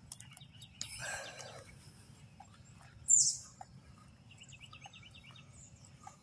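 Outdoor ambience with birds calling: a loud, short, high call about three seconds in and a quick trill of chirps near the end, over a faint low rumble.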